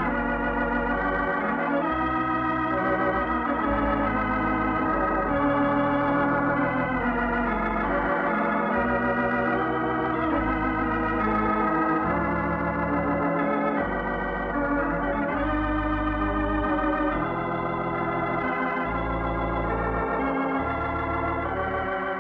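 Organ music, the radio program's closing theme: wavering held chords that change every second or two over low bass notes.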